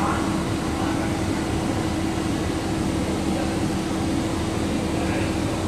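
Steady mechanical hum with a constant low drone, unchanging throughout.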